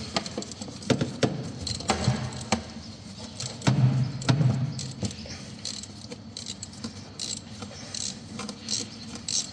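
Hands moving an engine-bay pipe and nearby parts: scattered clicks, knocks and light rattles of plastic and metal, with a few heavier knocks.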